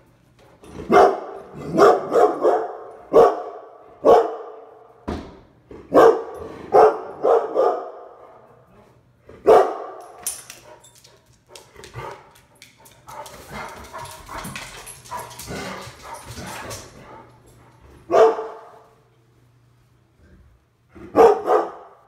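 Large yellow Labrador-type dog barking repeatedly, in single barks and quick runs of two or three. There is a quieter stretch in the middle, then one bark at about 18 seconds and a last pair near the end.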